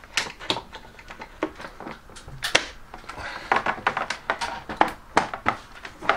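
Blackout roller-blind cassette head rail being handled and clipped onto its wall brackets: a run of irregular sharp clicks and knocks.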